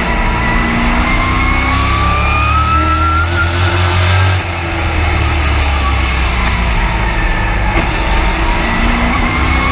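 Race truck's engine heard from inside the cab at full throttle, its pitch climbing for about three and a half seconds. A little over four seconds in the throttle comes off and the level drops, the note holds lower for a few seconds, then climbs again near the end as the truck accelerates once more.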